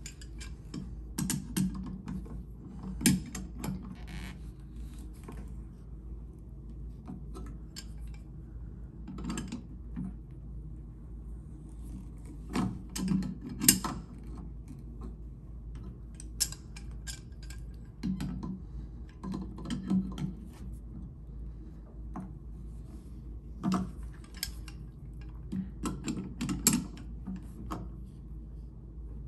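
Brass nut being threaded back onto a shower mixing valve by hand: irregular clusters of small metallic clicks and scrapes, with short pauses between them.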